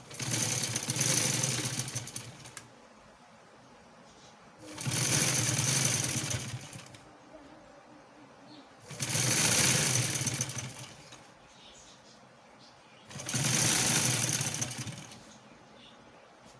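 Sewing machine stitching lace onto a fabric strip in four runs of about two seconds each, stopping for about two seconds between runs.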